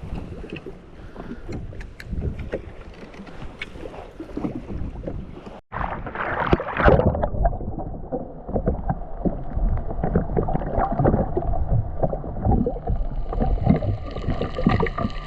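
Wind and water noise on the microphone aboard a jet ski, with small knocks of handling, broken by a short gap about five and a half seconds in; then a loud rush of water and a steady hum whose tones rise slightly near the end.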